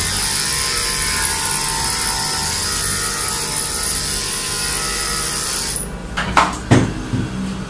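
Electric pet clippers fitted with a 4FC blade running steadily as they shave a poodle's body coat short, then switched off about six seconds in. A few sharp knocks follow.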